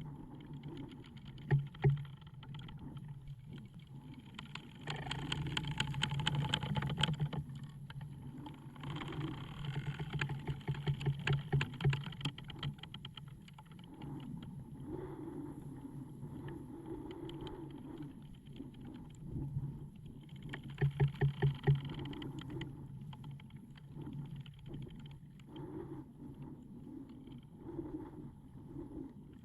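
Wooden ship's timbers creaking as the wood works and contracts, long drawn-out creaks made of rapid ticks that swell into three louder bouts, over a low steady hum.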